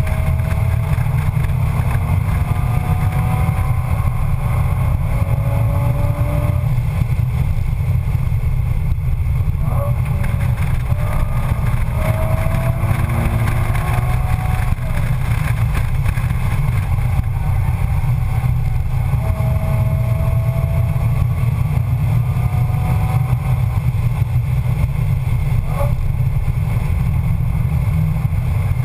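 Nissan 350Z's 3.5-litre V6 heard from inside the cabin under hard driving on track: a heavy, steady drone with the engine's pitch climbing again and again as the car pulls through the gears. Two short knocks stand out, about ten seconds in and near the end.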